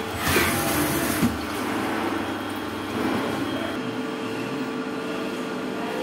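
CNC lathe peck-drilling a spinning workpiece with a twist drill under flood coolant: a burst of coolant spray hiss with a couple of knocks in the first second and a half, then the steady hum of the spindle and machine with a couple of held tones.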